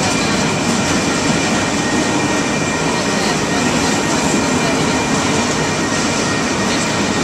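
Freight train rolling past: a steady noise of wheels on rails, with a faint, steady high whine over it.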